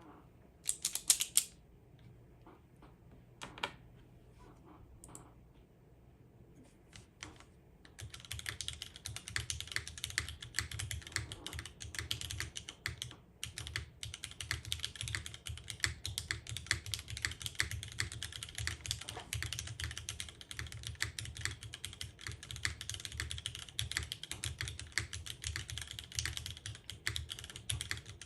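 Mechanical keyboard typing on lubed, filmed Cherry MX Vintage Black linear switches in an O-ring-mounted Cloudline with an aluminium plate, no foam and GMK keycaps. A few scattered clicks for the first several seconds, then steady, fast typing from about eight seconds in.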